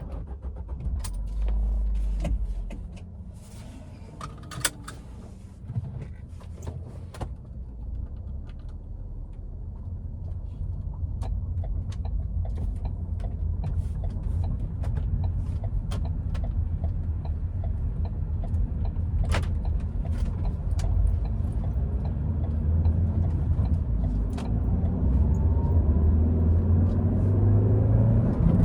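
Car driving, heard from inside: a low engine and road rumble that builds gradually as the car gets under way, with scattered clicks and knocks over the first several seconds and a faint rising engine whine near the end.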